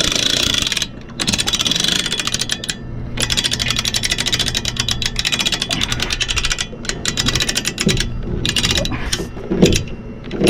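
Hand-cranked boat trailer winch ratcheting as the boat is pulled up onto the trailer: fast clicking in runs with a few short pauses, and a thump near the end.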